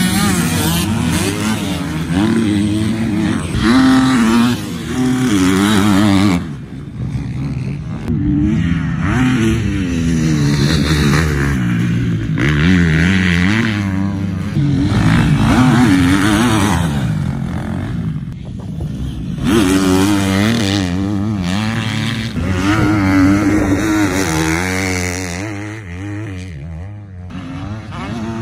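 Several motocross dirt bike engines revving up and down, pitch rising and falling with throttle and gear changes, with brief dips as bikes pass.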